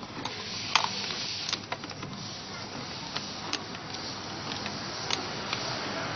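About seven scattered sharp clicks and small knocks, the loudest about a second in, over a steady hiss: hands working a rubber hose and its clip loose from a charcoal canister.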